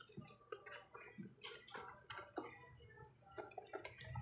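Faint, scattered small clicks and taps from pug puppies scrabbling on a plastic floor grate and being handled.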